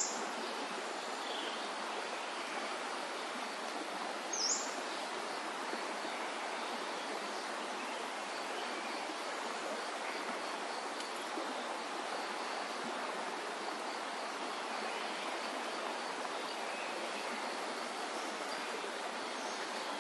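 Steady rush of river water and waterfalls, with two short, high bird chirps in the first five seconds.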